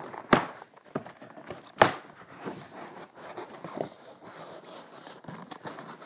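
Cardboard packing box being pulled open and handled: flaps rubbing, scraping and crinkling, with two sharp knocks about a second and a half apart.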